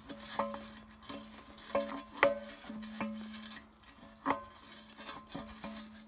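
Irregular metallic clinks and knocks, about nine of them, each with a short ring, the loudest about two seconds and four seconds in: steel parts at a small backhoe bucket's coupling knocking together as a hand works a rod or lever there. A faint steady hum runs underneath.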